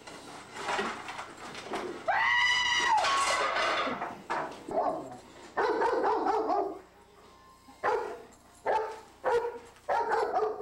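A long, high-pitched shriek that rises then falls, about two seconds in. It is followed by a string of short yelping cries and barks from a woman and a German Shepherd dog.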